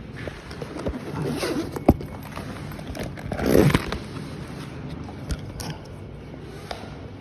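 Rustling and scraping handling noise with scattered knocks, as of a phone being carried while people hurry about: a sharp knock about two seconds in and a louder scraping rustle about a second and a half later.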